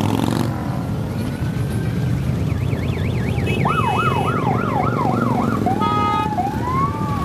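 A stream of Harley-Davidson V-twin motorcycles rumbling past at parade pace, with a siren sounding over them: a fast up-and-down warble in the middle, then slower rising-and-falling wails near the end.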